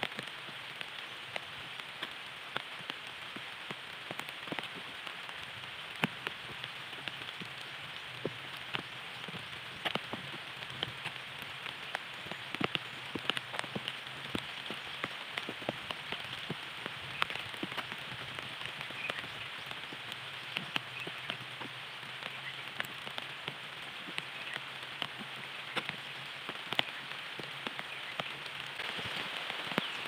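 Steady rain falling on foliage: an even hiss, with many separate drops ticking irregularly throughout.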